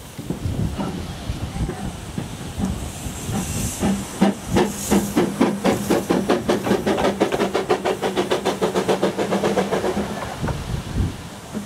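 Narrow-gauge 0-6-0T tank steam locomotive running light past at close range, working steam with a hiss. Its exhaust beats come quick and even, about five a second, from about four seconds in, and fade as it moves away near the end.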